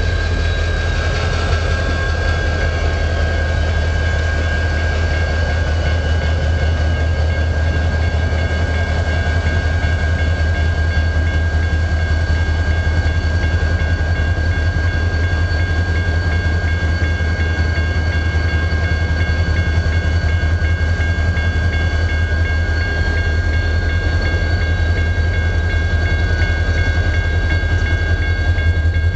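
CN diesel freight locomotives rolling slowly past close by, their engines giving a loud, steady low drone with a constant high whine on top, mixed with the noise of wheels on the rails.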